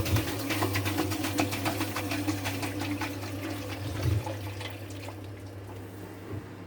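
Samsung drain pump humming steadily with an irregular crackling rattle of water, thinning out toward the end. Water is stuck and not draining, which the owner means to fix by cleaning the pump.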